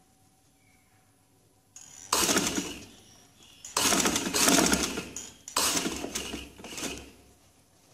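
Sewing machine stitching piping onto a neckline in three short runs of rapid stitches, starting about two seconds in, with brief pauses between runs.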